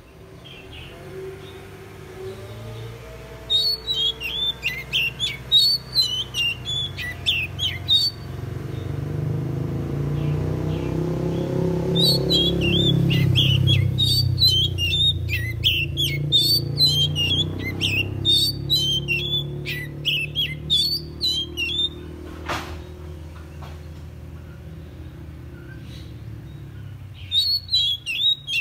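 Oriental magpie-robin singing in bursts of rapid, varied chirps and whistles, with pauses between the bursts. A low rumble swells and fades under the song in the middle, and there is one sharp click near the end.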